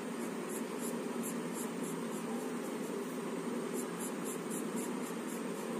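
Pencil scratching on paper in short, quick repeated strokes, several a second, over a steady background hiss.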